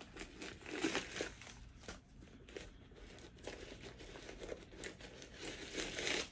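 Stuffing paper crinkling and rustling as it is pulled out of a new handbag's compartment. The rustling comes in irregular spells and is loudest about a second in and near the end.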